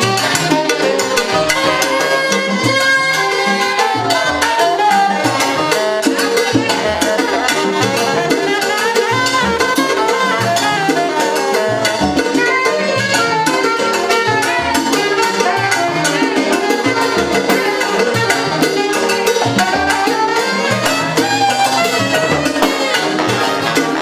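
Salsa big band playing live: saxophones and trumpets over steady Latin percussion.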